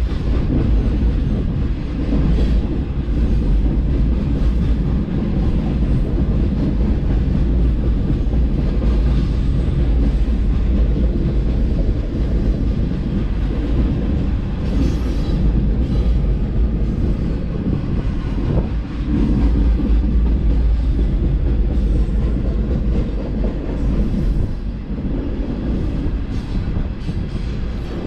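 Hopper cars of a long BNSF freight train rolling past on the rails, a loud, steady rumble of wheels on track.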